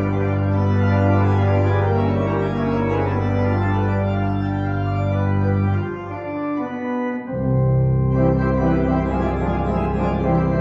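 Organ playing slow, sustained chords over a deep bass. Just past the middle the bass drops away for about a second, then a new full chord comes in.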